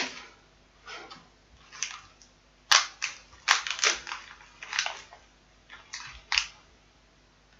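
Thin plastic packaging, a zip-lock bag and an anti-static shielding bag, crinkling in irregular bursts as it is handled and pulled open, with a couple of sharp snaps a little before the middle. It falls quiet near the end.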